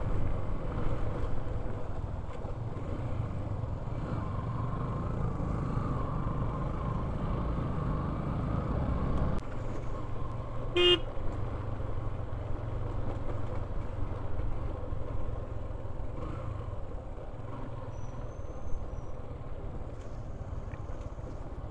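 Motorcycle riding over a rough dirt track: steady engine and wind noise, with one short horn toot about halfway through.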